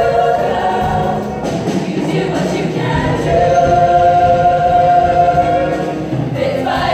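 Show choir singing in full chorus, holding a long sustained chord from about three seconds in.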